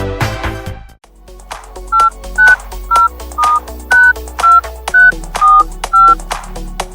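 Electronic background music drops away briefly, then a run of nine short telephone keypad (touch-tone) beeps, about two a second, plays out a tune over a low steady bass.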